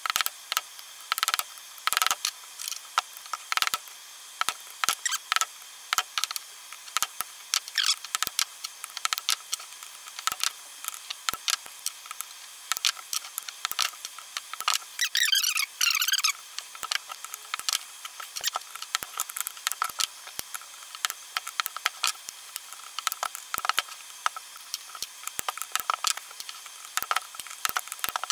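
Irregular sharp metal clicks and light taps of a screwdriver and hammer prising epoxy-glued magnets out of an electric hub motor's rotor ring, with a brief squealing scrape about fifteen seconds in.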